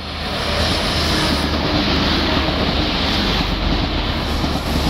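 Grand Central diesel passenger train passing close by at speed: a loud rushing of wheels and air over a steady low engine drone, swelling over the first second and then holding.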